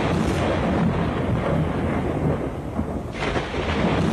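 Recorded thunderstorm sound effect: steady rain with low rolling thunder, the rain hiss swelling about three seconds in.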